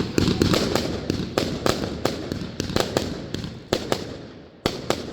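New Year's fireworks going off: a rapid run of sharp bangs over a crackling haze, thinning out to a few separate bangs near the end.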